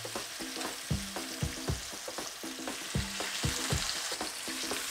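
Beef short ribs sizzling steadily in hot olive oil in a pan as they start to sear. Soft background music with short, evenly spaced plucked notes plays along.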